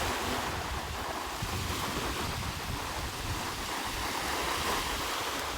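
Wind buffeting the microphone over a steady wash of sea water.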